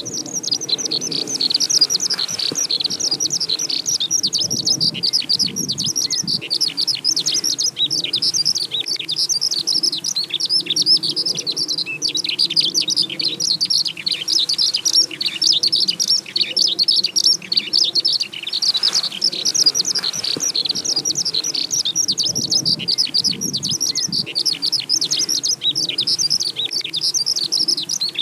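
Eurasian skylark in song flight, pouring out its long, unbroken stream of rapid, high chirps and trills without pause.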